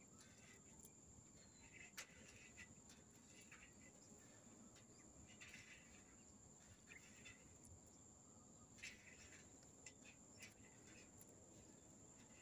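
Near silence, with a steady high-pitched insect drone and a few faint clicks and short chirps scattered through it.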